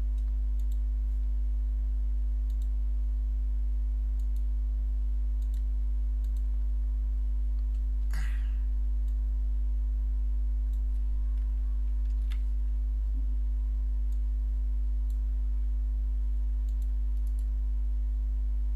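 Steady low electrical hum with a few faint higher steady tones over it and faint scattered clicks; about eight seconds in, a brief whistle falls quickly in pitch.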